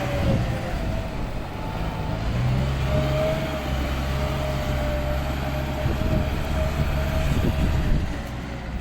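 A large vehicle's engine running steadily, a low hum with a higher whine above it.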